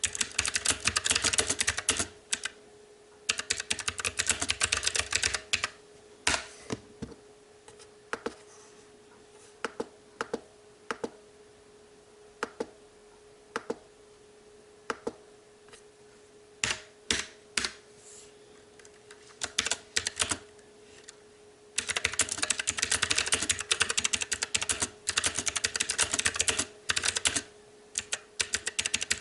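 STOGA retro-typewriter mechanical keyboard with blue clicky switches being typed on. There are fast, continuous runs of key clicks near the start and again over the last third, with slow, separate single key presses in between.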